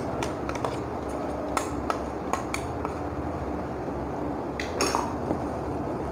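Steel spoon scraping and clinking against a stainless steel mixer jar and steel plate as ground spice powder is scooped out and spread. The clicks are light and scattered, with a denser clatter about five seconds in, over a steady low hum.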